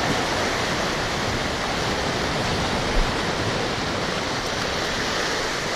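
Ocean water washing and splashing against a rocky shoreline, a steady rushing noise, with one brief low thump about three seconds in.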